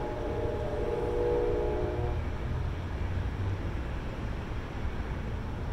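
A distant train horn holds a steady chord of several tones and cuts off about two seconds in, over a low rumble.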